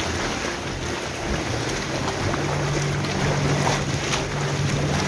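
Water churning and bubbling in a heated spa pool, with a steady low hum coming in about two seconds in.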